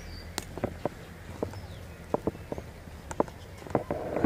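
Footsteps on a dirt track: irregular short steps, a few a second.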